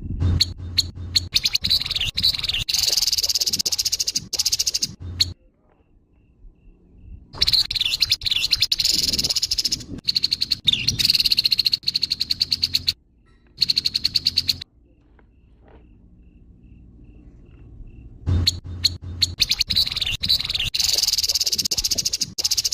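Grey-headed babbler giving its harsh call, a rapid rattling chatter, in three long bouts with quiet pauses of a few seconds between them.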